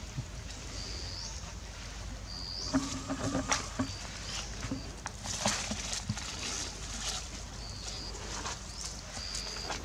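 Macaque monkeys moving over stone and dry leaves, with scattered scuffs and rustles from about three to six seconds in and a brief low call near three seconds. A short high chirp repeats about once a second in the background.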